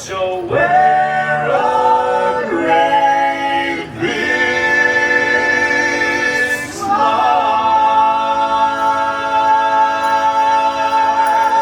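Barbershop quartet singing a cappella in close male-voice harmony, a few short chords followed by two long held chords, the second one held to the end.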